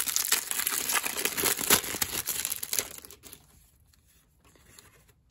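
Clear plastic wrapper of a 1993 Diamond Marks card pack crinkling and tearing as it is pulled open by hand, stopping about three seconds in, then faint handling of the cards.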